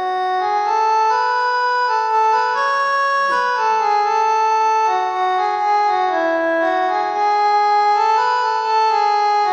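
Instrumental background music of slow, sustained keyboard notes, organ-like, moving to a new chord every second or two.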